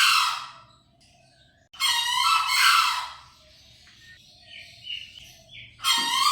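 Green junglefowl crowing: a repeated harsh, pitched call. The tail of one call sounds at the start, a full call of about a second and a half comes near the middle, and another begins near the end.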